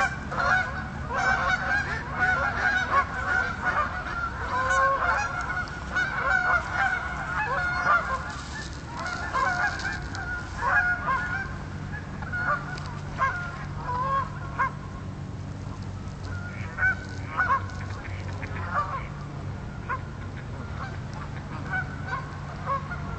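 A flock of Canada geese honking, many calls overlapping at first and thinning to scattered honks about halfway through, over a low steady rumble.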